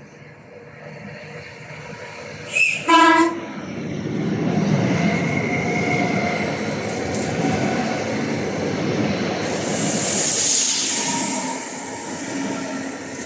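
Rodalies commuter electric train sounding its horn as it approaches, a brief toot followed by a short blast about three seconds in. It then rumbles past close by, with a loud hiss about ten seconds in.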